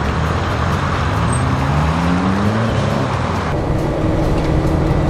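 Car engine and road noise heard from inside the cabin while driving. The engine's pitch rises as it accelerates, then eases to a steadier, quieter note after about three and a half seconds.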